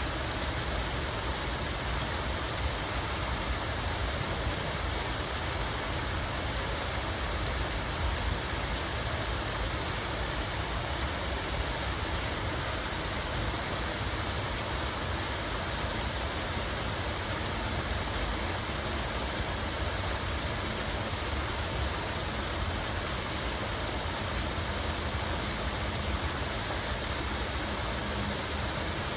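Water running and splashing steadily, an even rushing hiss with a low rumble underneath.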